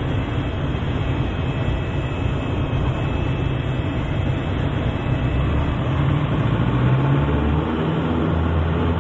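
Piper Super Cub's piston engine and propeller running steadily under a dense rush of air noise. The low engine note grows stronger about seven seconds in.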